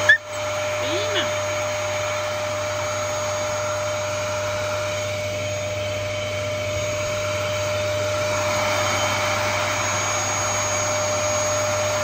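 Upright vacuum cleaner running steadily, its motor giving an even drone with a constant whine on top. A single sharp knock comes right at the start.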